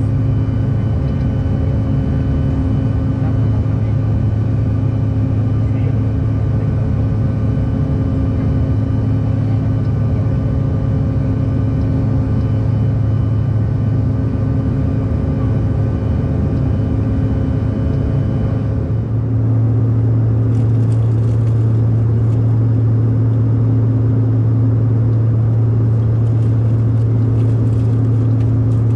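Steady cabin drone of a Bombardier CRJ-1000 in flight, dominated by the low hum of its rear-mounted General Electric CF34 turbofans with several steady tones above it. About two-thirds of the way through, some of the higher tones drop out and the low hum steadies and grows slightly louder.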